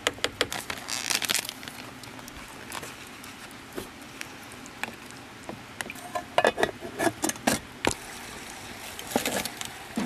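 Cooking utensils knocking and scraping against pots and dishes in scattered sharp clicks, busiest from about six to seven and a half seconds in, over a faint steady hiss.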